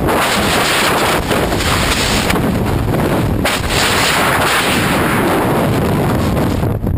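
Loud, steady rush of wind buffeting the microphone, with a few brief surges: the airflow of a skydiver in free fall.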